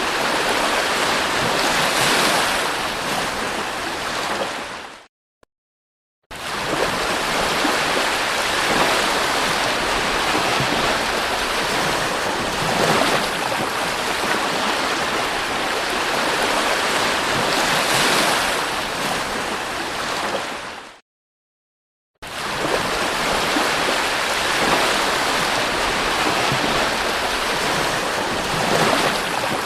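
Sea surf washing onto a beach: a steady rush of waves that swells now and then as a wave breaks. The sound drops out completely for about a second twice.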